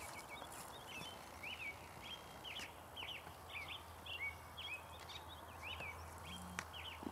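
A bird singing a long run of short, quick, slurred high notes over a faint steady low hum.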